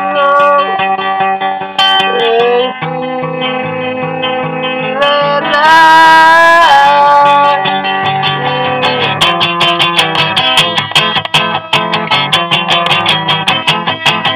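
A song played on strummed guitar with a singing voice, a home recording of poor quality. Held, wavering sung notes come around the middle, and from about nine seconds in the guitar strumming turns quick and even.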